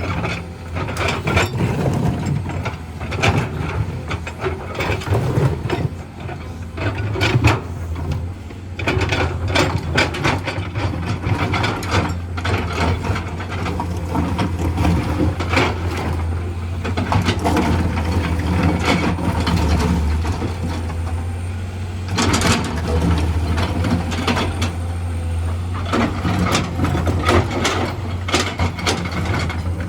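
Excavator at work: its diesel engine runs steadily under many irregular clanks, knocks and scrapes of metal and rock.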